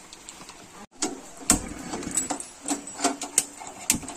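A few sharp knocks and clicks of a non-stick frying pan being set down and handled on a gas stove, the loudest and deepest thump about one and a half seconds in.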